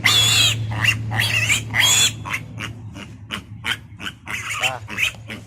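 Piglet squealing repeatedly, the first cries long and loud, the later ones shorter and weaker, over a steady low hum.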